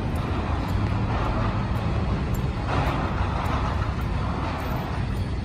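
Road traffic: cars and other vehicles driving past, a steady low rumble of engines and tyres, with a louder pass from about halfway through until near the end.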